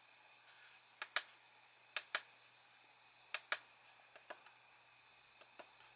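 Small plastic push buttons on a rear-view-mirror dash cam clicking as they are pressed, in three quick double clicks about a second apart, then a few fainter clicks.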